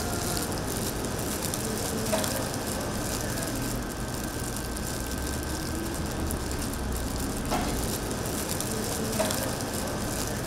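Peeled hard-boiled eggs being crushed by gloved hands in a stainless steel bowl: a steady wet crackling, with a few light knocks against the bowl.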